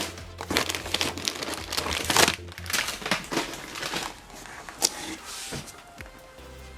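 Snack packaging crinkling and rustling as it is handled, in quick irregular crackles that thin out after about five seconds.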